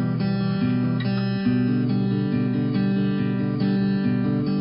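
Background music: an instrumental track with guitar, its chords changing about every half second at a steady level.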